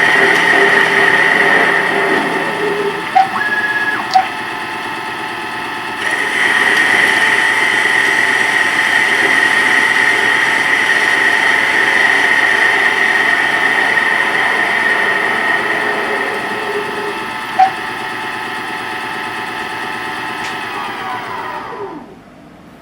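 CNC lathe running a facing cut, its spindle motor whining steadily, with a few sharp clicks. Near the end the spindle winds down, its pitch falling, and stops.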